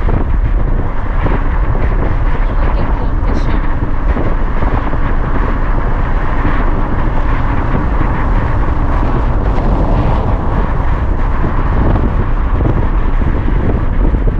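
Steady road noise of a moving car: engine and tyres on the road, with a heavy low rumble.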